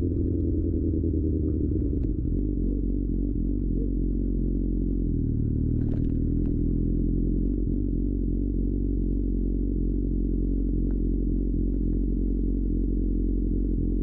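Suzuki GSX-R 600's inline-four with an Akrapovic exhaust, easing off and then running steadily at low revs. The engine cuts out suddenly at the very end.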